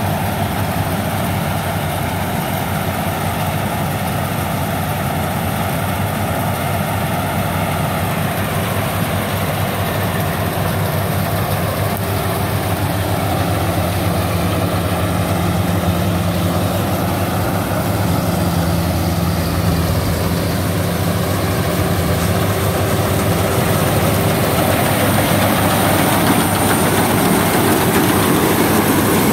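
Rice combine harvesters, a Yanmar and a Lê Lợi WD102 Pro, running steadily as they cut rice: a continuous engine and machinery drone. It grows a little louder near the end as the WD102 Pro's header comes close.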